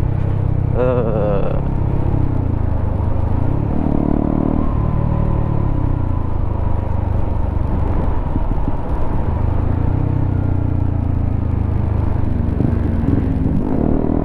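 Honda CBR motorcycle engine breathing through a WRX K3 oval aftermarket silencer on the standard header, running under way with its pitch rising and falling a few times as the throttle is worked.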